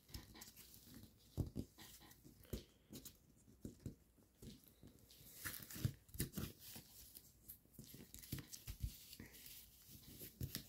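Faint, scattered rustling and crinkling of foil-backed paper being folded and creased by hand, with soft taps of fingers against the table. It is busiest about halfway through.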